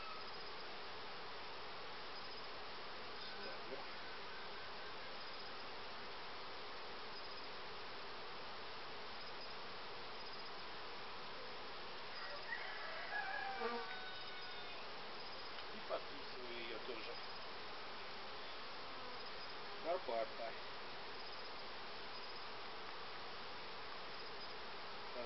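Honeybees buzzing around an open hive, a steady hum throughout. A few brief scrapes and knocks of wooden frames being shifted in the hive body come around the middle and again about 20 seconds in.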